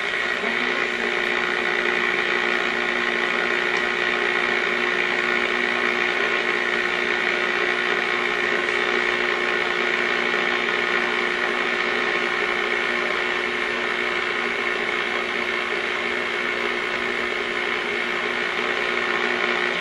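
Hallicrafters S38E shortwave receiver playing steady static hiss with a few constant whistling tones and no audible programme.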